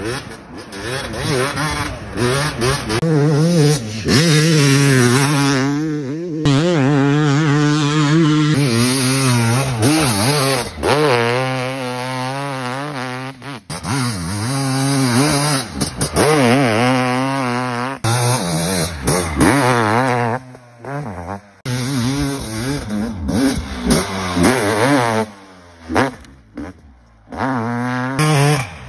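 Two-stroke motocross bikes revving hard and shifting through the gears on a dirt track, the engine pitch climbing and dropping again and again. The sound breaks off abruptly a few times where one riding clip cuts to the next.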